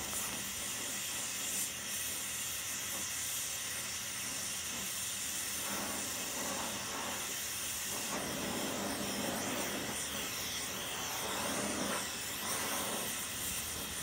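Oxy-fuel torch flame hissing steadily while brazing a cracked cast-iron wheel, the iron heated enough to take the brazing rod.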